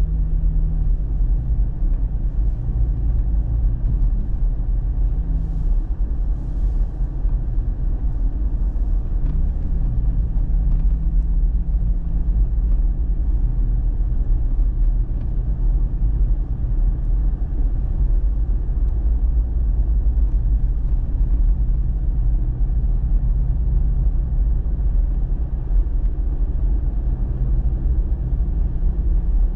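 Steady low rumble of a pickup truck's engine and tyres heard from inside the cab while driving.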